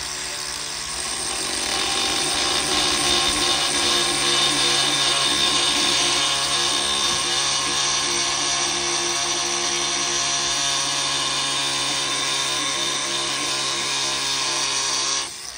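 Angle grinder running steadily with its disc grinding the front edge of a worn carbide forestry-mulcher tooth clamped in a vise, sharpening it. A steady whine with several tones that cuts off shortly before the end as the grinder is switched off.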